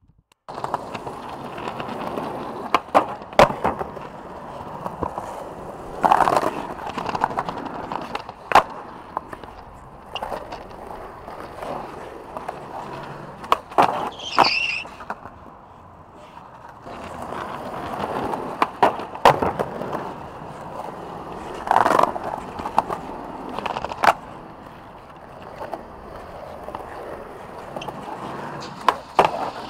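Skateboard wheels rolling over pavement, broken several times by sharp wooden clacks of the board popping and landing.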